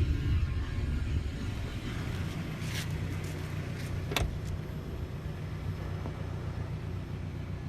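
A vehicle running with a steady low rumble, with a few sharp clicks about three and four seconds in.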